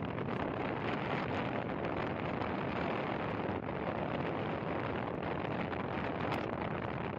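Steady wind rush on the microphone of a Yamaha R15 V3 motorcycle cruising at about 65 km/h, mixed with the bike's running sound.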